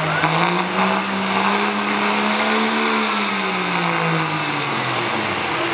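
Dodge Ram's Cummins turbo-diesel running hard under load as the truck pulls a weight-transfer sled. The engine pitch climbs about a second in, holds, then falls away near the end.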